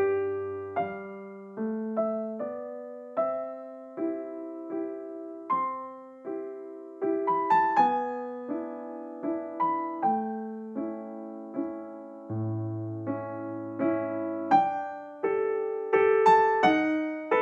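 Background music: a gentle piano-like keyboard melody, single notes struck at an even pace of a little more than one a second, each fading before the next.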